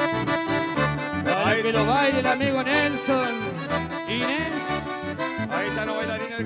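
Accordion-led traditional folk music with a pulsing bass beat.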